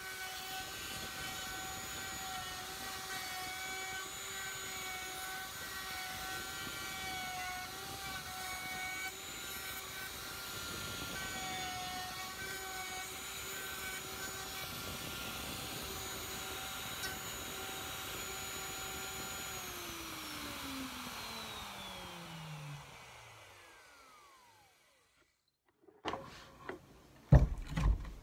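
Plunge router running steadily while it cuts a pocket in a pine tabletop. It is switched off about two-thirds of the way through and its whine falls in pitch as the motor winds down. Near the end come a few sharp knocks as the router is handled.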